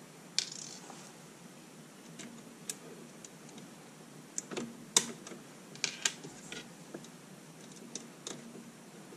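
Small, irregular clicks and taps of an M3 machine screw and nut being fitted by hand through the upper rail of a CrowBox housing, with a dozen or so sharp ticks spread unevenly.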